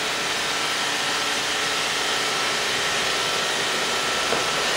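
iRobot Roomba robot vacuum running steadily, a constant whir with a faint high whine.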